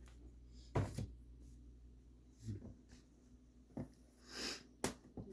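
Thin panels of a flat-pack paper organizer being pushed into their slots: a few sharp clicks and knocks, one about a second in and two close together near the end, with a short breathy hiss between them.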